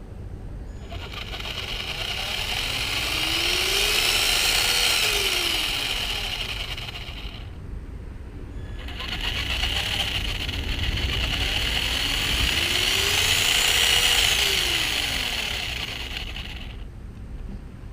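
Brushed 550 12-turn electric motor of a Traxxas Slash 2WD RC truck run up to speed and back down twice, a whine rising, holding, then falling each time over a steady hiss, with a short pause between the two runs.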